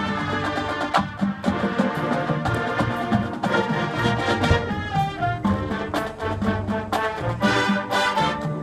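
Music with brass instruments over a steady, rhythmic beat.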